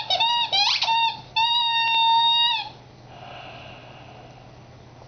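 Rubber squeaky toy squeaking as a puppy chews it: a quick run of short squeaks and one rising squeak, then a single long squeak lasting about a second. The squeaking stops a little past halfway through.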